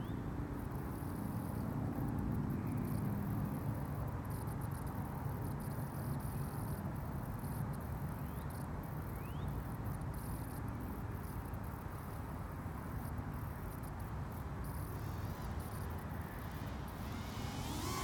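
A steady low rumble with a faint, insect-like buzz of a distant FPV racing quadcopter. The buzz swells near the end as the quadcopter approaches.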